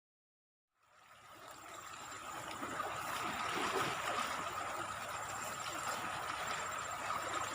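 Fast, muddy river current rushing steadily, the river swollen in flood; it fades in from silence about a second in, with a steady high tone running over the water noise.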